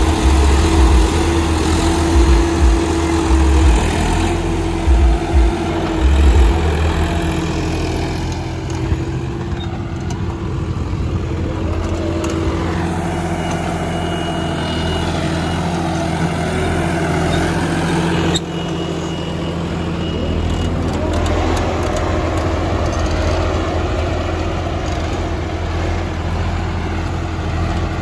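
John Deere 5075E tractor's diesel engine running steadily under load as it pulls a plough through the soil, with a heavy low rumble in the first several seconds.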